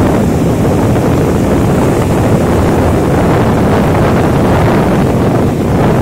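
Rough sea surf breaking and washing up a sandy beach, with wind buffeting the microphone: a loud, steady rush.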